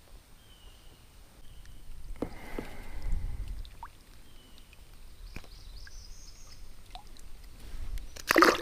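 Small knocks and bumps on a kayak with light water sounds, a low rumble about three seconds in, and a louder knock near the end.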